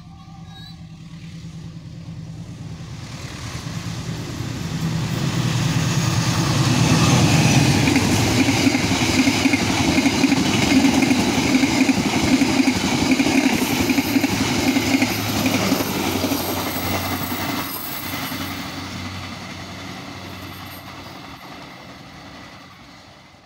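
Argo Cheribon passenger train, hauled by a diesel-electric locomotive, passing at speed. The locomotive's engine hum grows as it approaches, then the carriages' wheels run loudly over the rails, strongest from about six to sixteen seconds in, and the sound fades as the train recedes.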